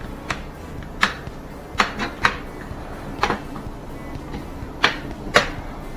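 Plastic snap-fit clips of a Dell Venue 11 Pro tablet's bezel popping loose one after another as a pry tool is worked around the edge: about eight sharp clicks at uneven intervals.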